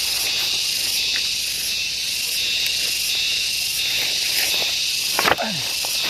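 A loud, continuous high-pitched insect chorus buzzing and shrilling in pulsing waves. About five seconds in, a single sharp crack with a short falling tone cuts through it.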